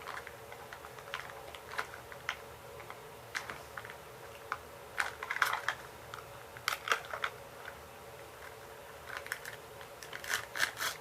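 Small plastic wrapper being crinkled and torn open by hand, with light clicks of tiny plastic pieces being handled: scattered crackles that come in clusters, busiest around the middle and near the end.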